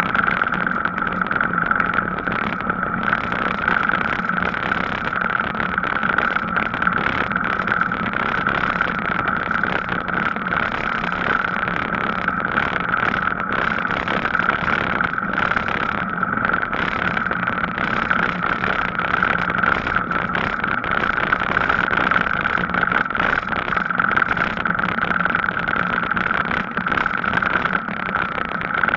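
Steady rolling noise from a Gazelle Paris C7 e-bike on the move: tyre and wind noise with a constant high hum and a lower hum, unbroken throughout.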